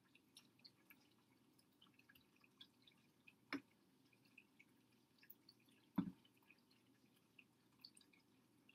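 Near silence with faint scattered ticks and two soft knocks about two and a half seconds apart, the second louder: a metal spoon's bowl set and pressed against a padded close-up mat while hands grip the handle.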